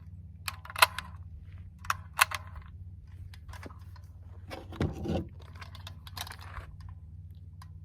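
Rifle being handled: several sharp metallic clicks in the first few seconds and a louder rattle about five seconds in, over a steady low hum.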